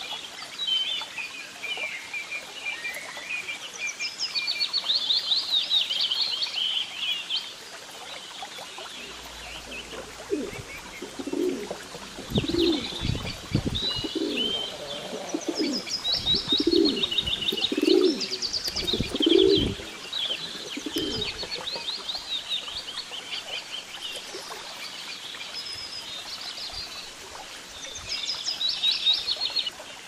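Small birds chirping and singing in quick high phrases throughout. In the middle stretch, pigeons close by give a run of about six deep coos.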